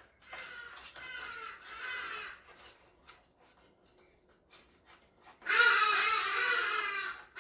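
High, wavering wailing cries: two fainter ones in the first couple of seconds, then a loud, drawn-out cry lasting nearly two seconds near the end.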